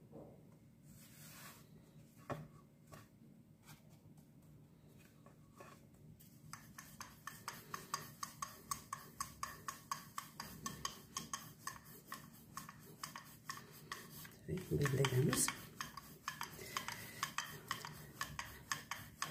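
Rolling pin working a stuffed paratha dough on a wooden board: scattered clicks at first, then from about six seconds a steady run of clicks and rubs, about three a second, as the pin goes back and forth. A brief, louder low thud comes about fifteen seconds in.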